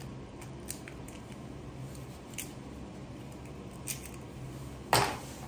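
A few faint clicks of eggshell being opened over a stainless steel bowl and handled, then one sharp clack near the end.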